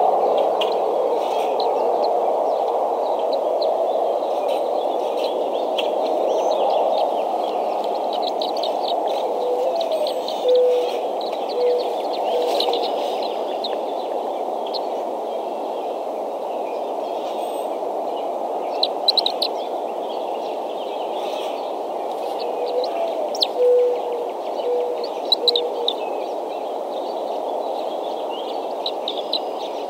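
Birds chirping and calling at an eagle nest, with many short high chirps and, twice, a short run of low hooting notes, over a steady outdoor rushing noise.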